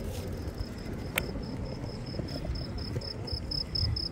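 Cricket chirping in an even, rapid pulse that starts about a second in, over a low rumble from the moving bicycle. A single sharp click comes just before the chirping begins.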